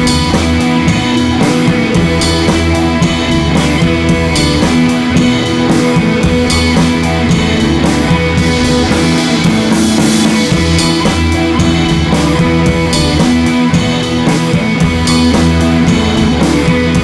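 Loud rock-style music with guitar and drums played through a large outdoor stage sound system with hanging speaker stacks, running steadily as a sound check.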